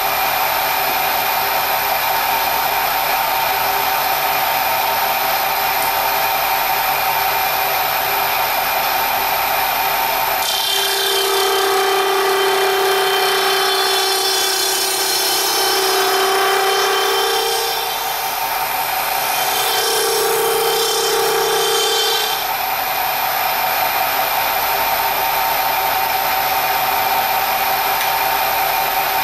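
Milling machine spindle running steadily, driving a gear cutter. From about ten seconds in, for about twelve seconds, the cutter feeds through a plastic gear blank and a louder, higher cutting whine joins the motor noise, easing briefly partway through.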